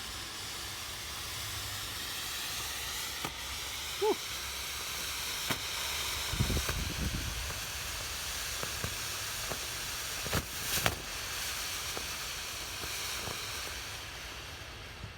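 Colossal Smoke Bomb hissing steadily as it burns, with a few sharp clicks and a brief low rumble about six seconds in.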